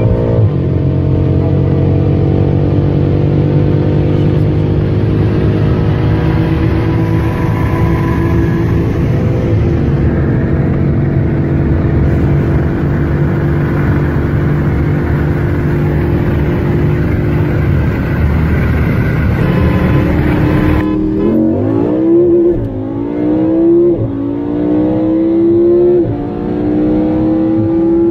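Car engines at full throttle in a roll race, heard from inside a car: first a long, steady high-rev pull that climbs slowly, then after a sudden change a car accelerating hard through the gears, its pitch rising and dropping back at each upshift about every two seconds.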